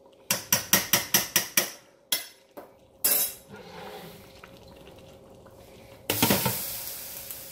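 A stainless steel serving spoon knocked against the rim of a stainless stockpot, about eight quick metallic clinks, followed by a couple of single knocks as it is laid down. About six seconds in, the stainless lid goes onto the pot with a sudden clash, followed by a hiss that slowly fades.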